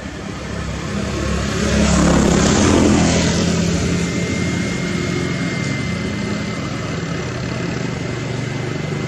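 A motor vehicle passing close by: engine and road noise swell to a peak about two to three seconds in, then settle into a steady engine hum.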